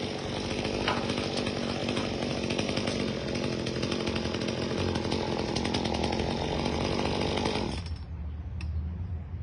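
Chainsaw running at high revs, cutting, then dropping abruptly back to a low idle about eight seconds in.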